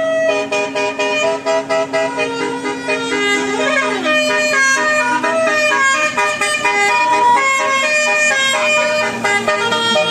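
Bus telolet horn of the Basuri type, a set of electric trumpet horns playing a quick tune in short stepped notes over a steady low hum, with a brief falling glide about four seconds in.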